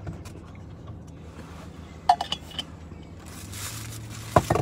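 Food and drink being handled inside a car: a few short clicks and knocks with a light clink about two seconds in, rustling building toward the end, and one sharper click near the end, over a steady low hum.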